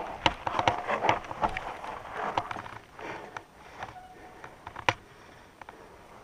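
Hardtail mountain bike clattering over a rocky dirt trail: a quick run of sharp knocks and rattles from the tyres and bike hitting rocks, easing off about halfway through, with one sharp knock near the five-second mark.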